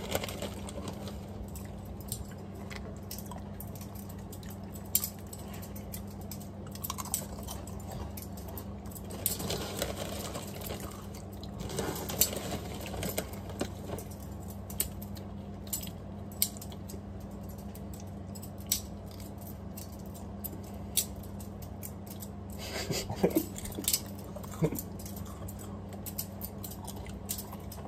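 Plastic spoon clicking and scraping in a plastic tub of beans, scattered light clicks that come thicker at times, over a steady low hum.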